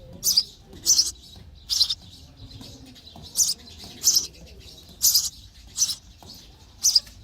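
Sparrows chirping: a run of short, high chirps, about one a second, several coming in pairs with brief gaps between.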